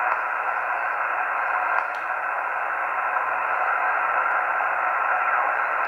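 Yaesu FT-891 HF transceiver receiving on the 12-meter band in single sideband: a steady hiss of band static through its narrow voice passband while the operator listens for replies after calling QRZ. The hiss cuts off abruptly near the end.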